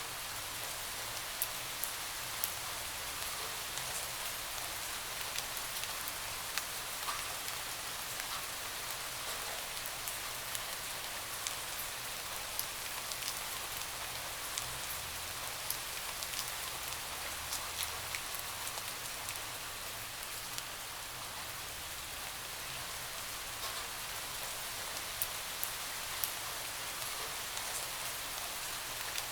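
Steady rain, with the sharp ticks of separate drops striking a hard surface scattered through a constant hiss.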